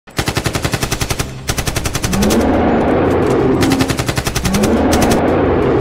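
Machine-gun fire sound effect: rapid shots at about a dozen a second in several bursts, twice giving way to a longer rushing noise with a low rising tone.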